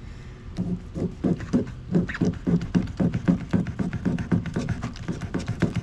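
A knife sawing in quick back-and-forth strokes through a yellow jack's pin bones on a wooden cutting board: a rhythmic run of short knocks, about three or four a second, starting about half a second in.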